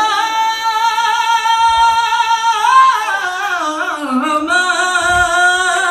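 Male a cappella vocal group holding a sustained chord at the end of a song, while one singer runs a long melodic riff over it.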